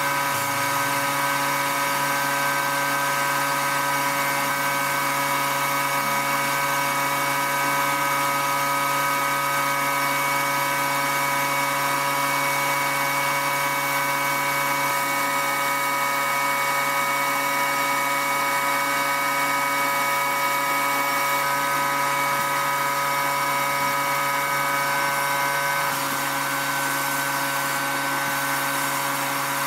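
Sandblasting gun in a blast cabinet: a continuous hiss of air and grit stripping rust from a steel knife blade, over a steady machine hum. It drops slightly in level near the end.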